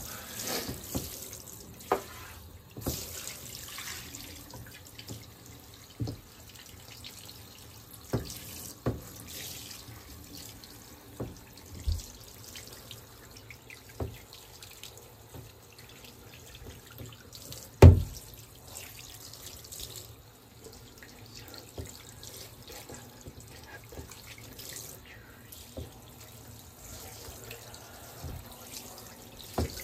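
Handheld shower head spraying a steady stream of water over a wet cat in a bathtub. A few sharp knocks break in now and then, the loudest about 18 seconds in.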